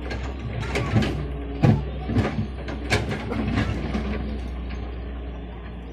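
Doosan DX140W wheeled excavator's diesel engine running steadily as its bucket digs into rocky soil. Irregular knocks and scrapes of stones against the bucket come on top, the loudest about a second and a half in.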